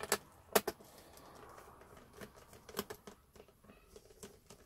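A few sharp clicks and light ticks of a small screwdriver working screws out of a laptop's plastic base cover, the loudest clicks in the first second.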